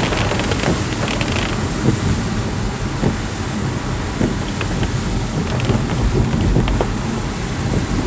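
Car cabin noise while driving slowly on a wet road in rain: a steady low rumble and hiss of tyres on wet tarmac, with scattered light ticks.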